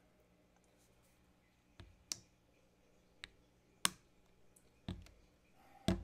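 A handful of sharp plastic clicks and knocks: the flip-top cap of a plastic paint bottle being pressed shut and the bottle set down on a cutting mat. They start about two seconds in, and the last one has a duller knock.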